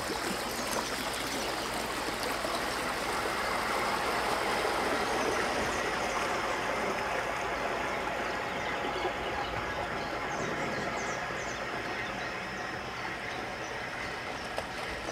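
Wake from a passing small motorboat washing and lapping against a stony river bank: a steady rush of water that swells a little partway through.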